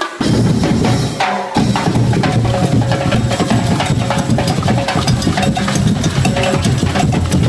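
A drum band of chrome-shelled drums, timbales and congas, with shakers, playing a loud, dense beat. The full band comes in just after the start, the low drums drop out for a moment about a second and a half in, then drive on steadily.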